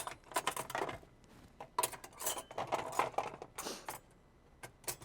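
Table knife clinking and scraping against a dish in short, irregular bursts while scooping out a cream cheese mixture to spread on bread.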